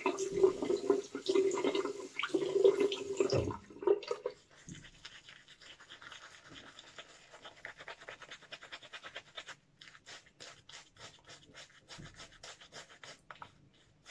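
Bathroom tap running into the sink for about the first three and a half seconds as water is added, then stopping. After that a shaving brush works shaving soap into lather on a bearded face, giving soft, quick brushing strokes, several a second.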